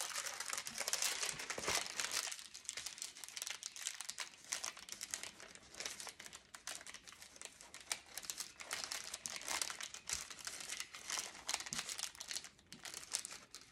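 Parchment paper crinkling as it is smoothed and pressed over a mesh petal, in irregular crackles, busiest in the first couple of seconds and fainter after.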